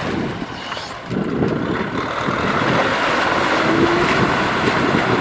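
Tractor engine running while working through deep mud. The level drops for about half a second, then picks back up and holds steady.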